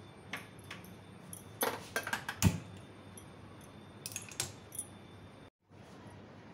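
Light metallic clicks and clinks of kitchenware, a cluster of them with one louder knock about two and a half seconds in and a few more about four seconds in; the sound drops out briefly near the end.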